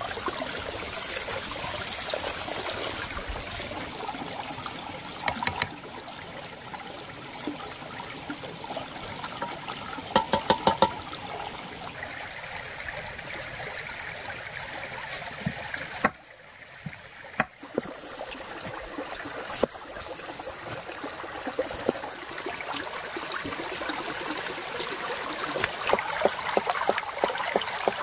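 Shallow stream trickling and babbling over rocks, steady throughout, with a few sharp knocks along the way and a brief dip about two-thirds through.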